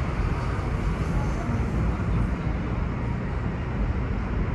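Steady outdoor city noise: a continuous low rumble of traffic with a faint murmur of voices.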